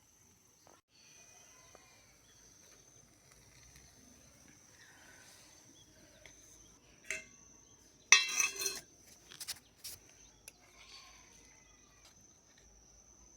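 Small utensils clinking against miniature cooking pots and dishes: one clink, then a quick cluster of ringing clinks about eight seconds in and a few lighter ones after. A steady high insect trill runs underneath throughout.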